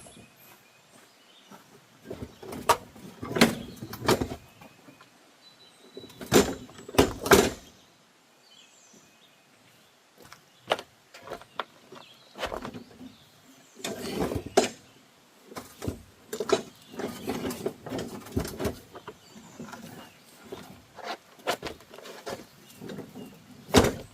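Irregular knocks, clanks and rattles of hand work removing the deck hanger from a Cub Cadet LT1050 riding mower, in uneven clusters with a short lull partway through.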